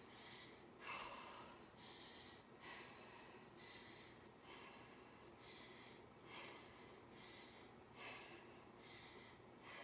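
A woman's faint exertion breathing, a breath about once a second, while she does a set of dumbbell curls.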